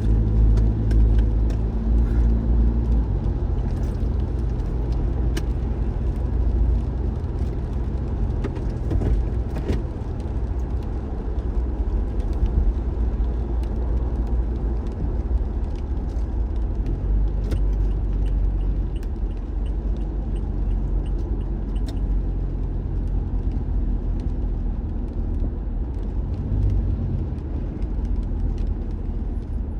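A car driving along, with a steady low rumble of engine and tyres on the road and scattered faint ticks and clicks.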